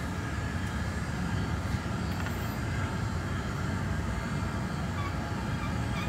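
Steady low roar of a glass hot shop: the gas-fired glass furnace, its door open for a gather, together with the shop's blowers and exhaust fans.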